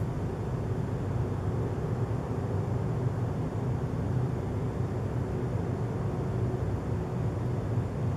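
A steady low drone with a faint hum running through it, unchanging in pitch and level: the unexplained "strange sound" heard at night.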